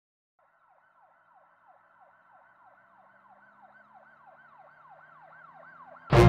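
Faint emergency siren that grows slowly louder, its pitch swinging up and down about three times a second. A sudden loud sound cuts in at the very end.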